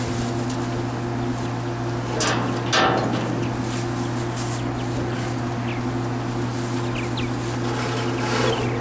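A machine engine running steadily at idle, with two brief hisses about two and three seconds in and a few short bird chirps in the second half.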